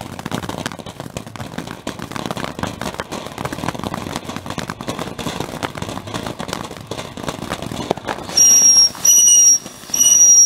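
Ground fountain firework spraying sparks with a dense crackle, then about eight seconds in, it gives three short, shrill whistles in a row, each about half a second long.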